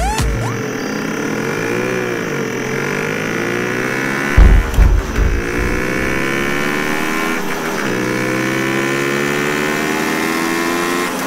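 Several motorcycle engines running and accelerating, their pitch rising steadily as the bikes approach. Heavy low thuds come about four to five seconds in, and once more briefly a little later.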